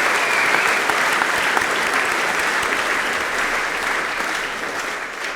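A large audience applauding, sustained clapping that thins out near the end.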